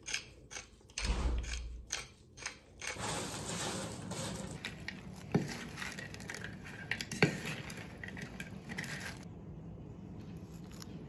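Stainless-steel pepper mill twisted by hand, grinding peppercorns in a run of crunchy clicks. From about three seconds in, romaine leaves are tossed with wooden servers in a wooden bowl: a steady rustle with two sharp knocks of the servers against the bowl. The sound drops to a quieter level near the end.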